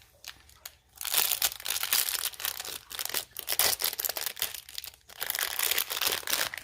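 Plastic packaging of a Pikmi Pops surprise toy crinkling and tearing as it is unwrapped, in two stretches of dense crackling with a brief pause about five seconds in.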